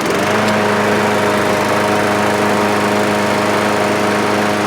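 Standard Craftsman lawn mower's petrol engine running loudly at a steady, constant speed, with an even pitch throughout.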